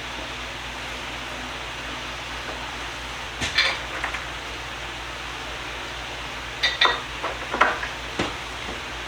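Metal clinks and knocks from tools and bolts being handled while a heavy bench vise is bolted down, in two short clusters a few seconds apart, over a steady background hiss.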